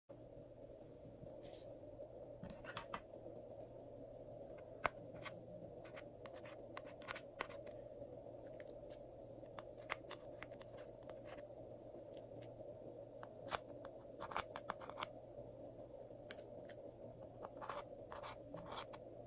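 Metal spatula scraping and tapping pressed eyeshadow out of the pans of a makeup palette: irregular sharp clicks and scratches over a steady faint hiss.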